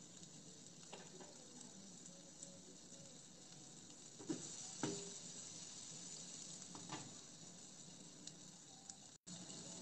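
Chicken satay skewers sizzling faintly in a grill pan, with a few light knocks about one, four to five, and seven seconds in.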